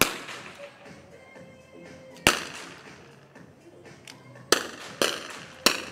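Five small-bore .22 rimfire rifle shots from finalists firing on the range, each a sharp crack with an echoing tail: one at the start, one a little past two seconds, then three in quick succession near the end.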